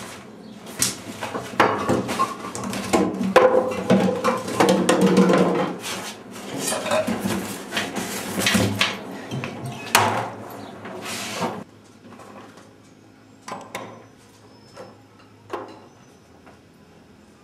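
Things clattering and knocking as someone rummages through a kitchen cupboard, with many sharp knocks for about eleven seconds. It then goes much quieter, with only a few faint clicks.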